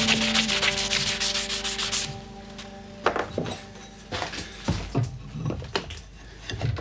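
Background music ending about two seconds in, then a rubbing, scraping sound like hand sanding, with a scatter of light knocks.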